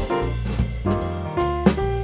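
Instrumental background music with held notes over a bass line and drum hits.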